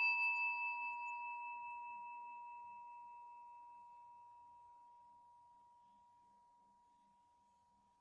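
Buddhist meditation bell ringing out after a single strike, on one steady tone with higher overtones that die away first. The ring pulses slightly at first, then fades smoothly to near silence over about seven seconds.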